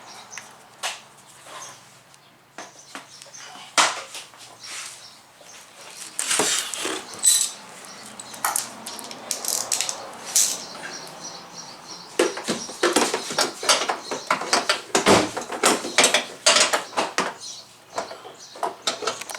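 Irregular clicks, knocks and rattles of a car's plastic bumper cover being handled and pushed back into place. Sparse at first, coming thick and fast over the second half.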